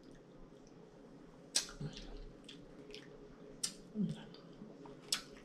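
A handful of sharp clicks of a metal spoon against a glass bowl between quiet mouthfuls, with a short hummed "mm" about four seconds in.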